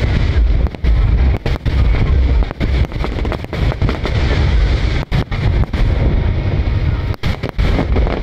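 Aerial fireworks bursting in a dense, continuous barrage of booms and crackles, loud and heavy in the low end.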